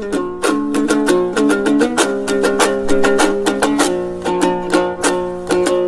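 Komuz, the Kyrgyz three-stringed plucked lute, playing a fast instrumental interlude between sung verses: quick plucked and strummed notes over a steady low note.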